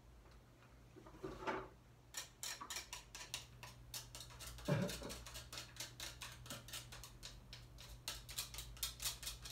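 A kitchen knife cutting food held in the hand over a plastic bowl: a quick run of short, sharp cutting strokes, about four or five a second, starting about two seconds in. A brief, louder, lower sound comes near the middle.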